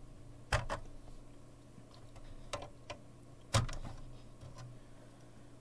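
Scattered clicks and knocks of a small hand tool and a circuit board being handled, about five in all, the loudest about three and a half seconds in, over a steady low hum.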